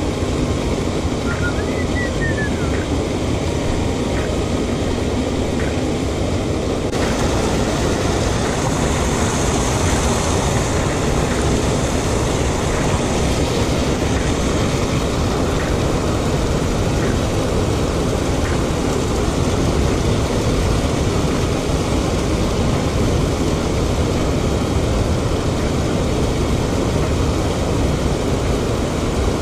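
Water pouring over a concrete spillway weir: a loud, steady, unbroken rush. It turns brighter and hissier about seven seconds in.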